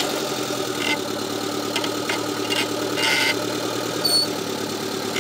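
Suzuki Samurai off-road vehicle's engine running steadily at low revs, with a few short sharp sounds over it.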